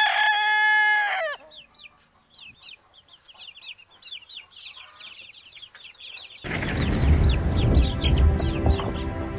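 A rooster crows once, the call ending about a second and a half in, followed by a run of rapid, high, falling chirps. About six and a half seconds in, loud music starts with a deep, heavy opening and continues under the chirps.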